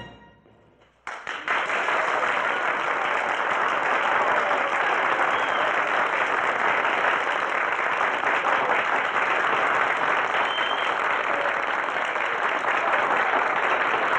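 The tail of a big band's brass chord fades out, and about a second in an audience starts applauding, clapping steadily and densely to the end.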